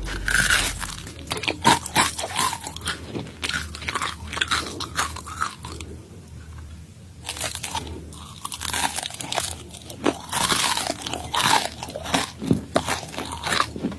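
Close-up crunching and chewing of deep-fried tarantula: irregular crisp crunches with a short lull about six seconds in.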